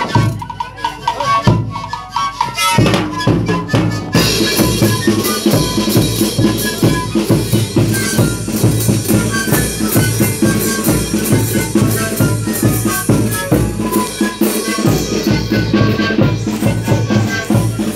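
A zampoña (siku panpipe) band playing a tune to a beat of bass drum, snare drums and cymbal. The band grows fuller and louder about three to four seconds in.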